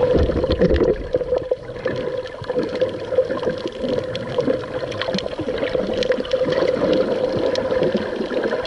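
Seawater sloshing and gurgling around the camera while swimming or snorkelling, full of small splashy clicks, with a steady hum underneath.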